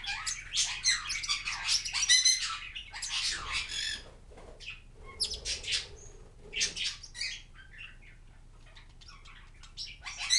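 Two small green parrots chirping and squawking in quick, high-pitched bursts. The chatter is dense for the first four seconds, becomes sparser, and is mostly quiet after about seven seconds, with a loud burst at the very end.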